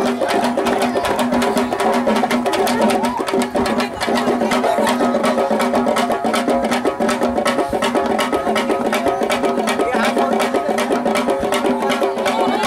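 Traditional Indian drumming: fast, even drum strokes over a steady droning tone, accompanying a fire-stick martial-arts display.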